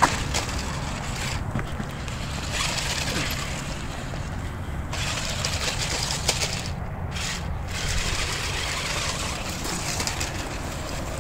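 Steady rumbling noise of an RC rock crawler driving over loose dirt, its small electric motor and tyres working the ground, with a hiss that dips briefly about seven seconds in.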